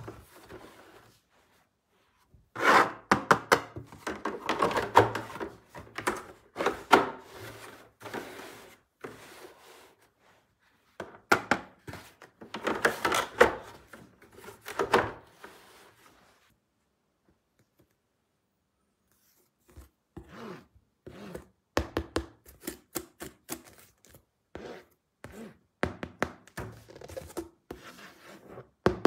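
Irregular knocks and thunks with some rubbing, coming in clusters separated by pauses, with a few seconds of quiet past the middle.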